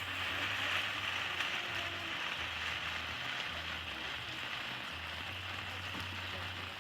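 A ground fountain firework hissing steadily as it sprays sparks, with no bangs.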